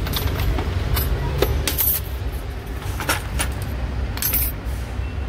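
Metal hand tools clinking and rattling against each other in a plastic tray as hands rummage through them: a handful of sharp, irregular clinks over a steady low background rumble.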